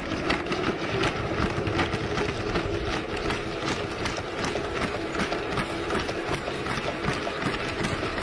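A team of Boston Dynamics Spot quadruped robots walking together, their feet tapping and clattering on pavement in a fast, uneven patter over a steady mechanical hum.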